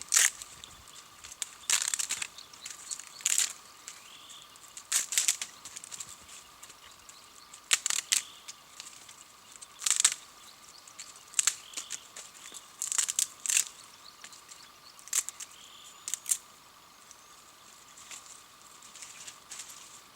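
Footsteps crunching in dry, deeply frozen snow, one crunch every second or two with a few short pauses.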